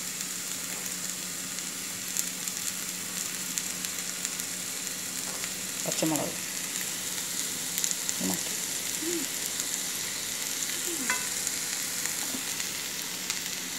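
Chopped onions frying in hot oil in a pan, sizzling steadily.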